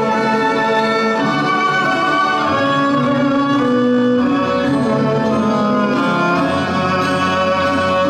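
Instrumental break of a song's backing track, with strings holding long notes that change every second or so.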